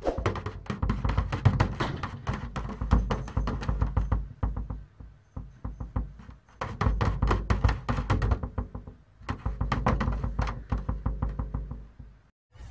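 A drum kit played fast, the bass drum pedal beating the kick drum rapidly in dense runs. The playing breaks off twice for a second or two, then stops just before the end.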